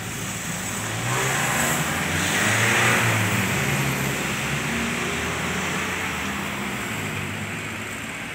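A car passing by: engine and tyre noise swell about a second in, are loudest around three seconds in, then slowly fade.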